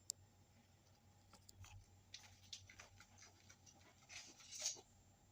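Faint handling noises: a sharp click just after the start, scattered light ticks, and a brief rustling scrape a little after four seconds.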